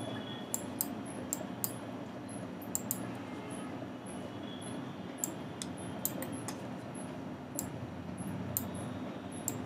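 Computer mouse clicks, about a dozen short sharp clicks at irregular intervals, over a steady low background hum.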